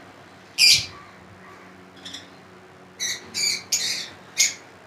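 Lovebirds squawking: one shrill screech about half a second in, then four harsh calls in quick succession from about three seconds in.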